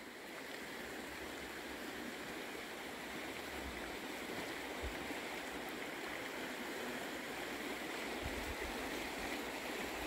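Steady rushing hiss of the flowing Laba River.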